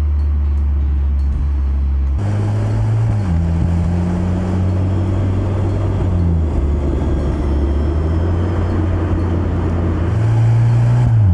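Mercedes-AMG C63 S E Performance driving, its engine running at a steady pitch that shifts a few times, with a short downward glide around three seconds in and another near the end. Road and wind noise joins about two seconds in.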